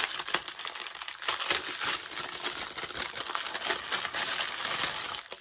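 Clear plastic packaging bag crinkling in the hands as it is opened and handled, with many small crackles.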